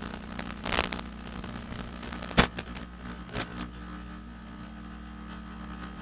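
A steady hum broken by three crackling clicks, the loudest a sharp crack about two and a half seconds in.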